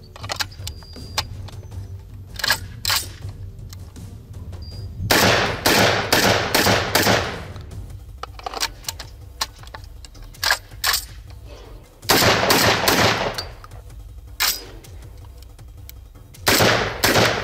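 UTAS XTR-12 semi-automatic 12-gauge shotgun firing rapid strings of several shots, about five seconds in, about twelve seconds in and near the end, with a few single shots between. Sharp metallic clicks of the magazine and action being handled come first.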